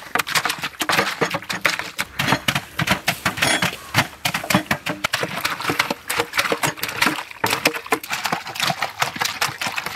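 Grapes being crushed in bulk for juice: a dense, irregular run of small clicks and crackles.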